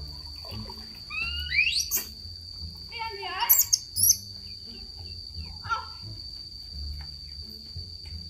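Ducklings peeping in scattered bursts of high chirps, over a steady high-pitched insect drone.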